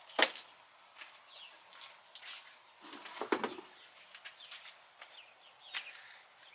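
Sporadic clicks and knocks of cold air intake parts and screws being handled and fitted together. The sharpest click comes just after the start, with a cluster of knocks about three seconds in. Faint bird chirps sound in the background.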